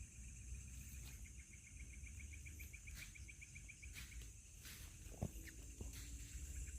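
Night insect chorus: a steady high-pitched buzz with a rapid trill of about eight pulses a second rising and fading partway through. A few faint clicks come through.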